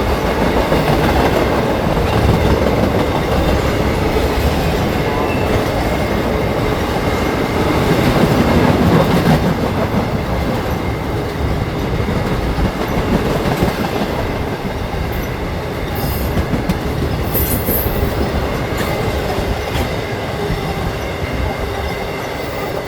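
CSX intermodal freight train's cars rolling past close by: a continuous heavy rumble of steel wheels on the rails with clickety-clack over the rail joints and a thin, steady high wheel squeal.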